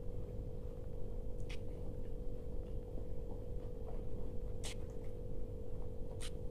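Someone eating dahi golgappe, the crisp puri shells filled with yogurt: chewing with a few sharp crunches, over a steady hum.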